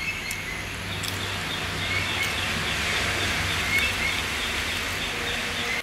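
Steady outdoor background noise with small birds chirping: a quick run of repeated high chirps, about four a second, and a few short rising calls.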